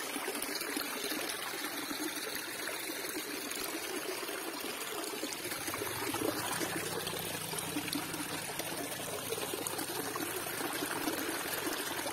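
Small mountain spring trickling from a rock face into a shallow pool, a steady splashing of water.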